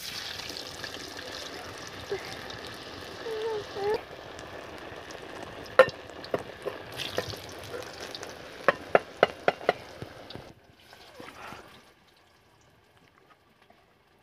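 Battered potato pakoras sizzling in hot oil in a kadhai just after being dropped in, a steady hiss of frying. Several sharp clicks or pops come through, one about six seconds in and a quick run of them about nine seconds in. The sizzle drops away sharply about ten seconds in, and what remains is fainter and fades out.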